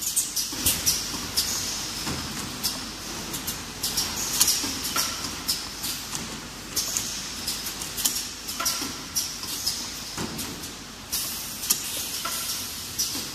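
Automatic bottle-filling line running, with repeated sharp clacks and knocks from the filling heads and plastic bottles on the conveyor. Bursts of hiss come every couple of seconds over a steady machine rattle.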